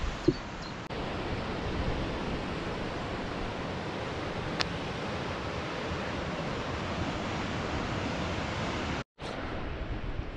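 Steady rushing noise of wind and surf on the coast, with a brief break to silence about nine seconds in.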